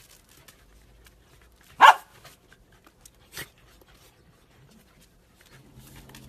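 A dog barks once, a single loud, short bark about two seconds in, followed by a fainter short sound about a second and a half later.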